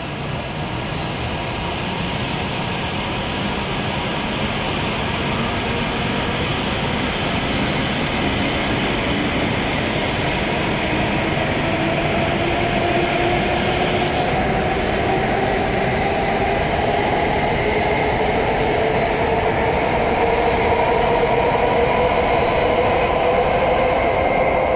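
W7 series Shinkansen train pulling out of the platform and gathering speed. The whine of its traction motors rises slowly in pitch, and the rolling noise grows steadily louder as the cars pass.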